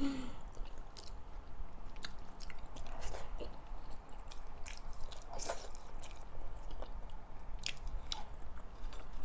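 A person chewing a mouthful of rice with pork and vegetables close to the microphone, with irregular sharp mouth clicks.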